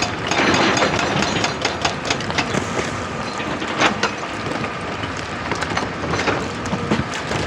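Excavator at work on rock: a steady engine-and-machinery noise with irregular clattering knocks of stone, one loud knock about four seconds in.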